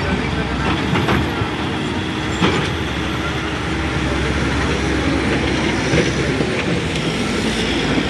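Diesel road-construction machinery (motor grader and road rollers) running steadily, with a clattering mechanical noise and a few sharp knocks.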